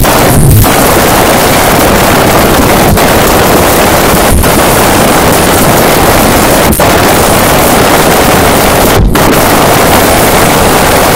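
A song amplified far past clipping into a continuous harsh, crackling wall of distortion, the music itself barely recognisable. A few brief dips break the noise, about three, four and a half, seven and nine seconds in.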